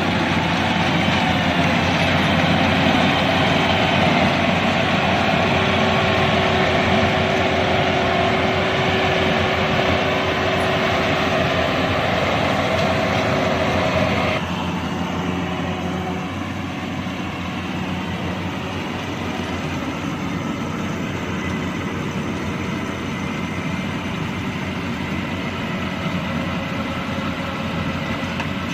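Yanmar 82V rice combine harvester running steadily under load while cutting rice, its diesel engine and threshing machinery making a continuous dense din. About halfway through, the sound drops suddenly to a quieter, duller level and carries on steady.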